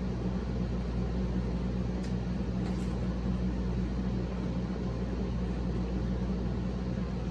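A steady low mechanical hum, with a couple of faint clicks about two and three seconds in.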